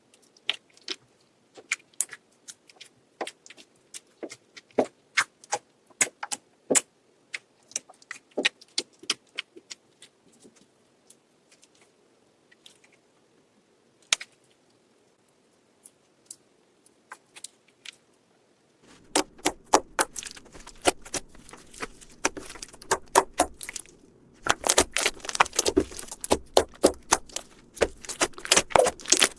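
Slime being worked by hand, making sharp wet clicks and pops: scattered at first, then much faster and denser over a steady hiss about two-thirds of the way in.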